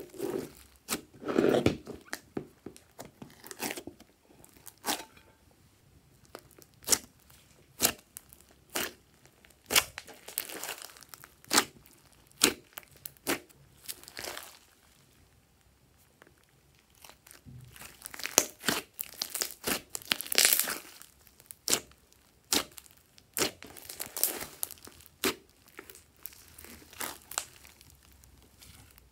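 Glossy slime squeezed, pressed and stretched by hand, giving irregular sharp pops, clicks and crackles as trapped air pockets burst, with a quieter pause about halfway through.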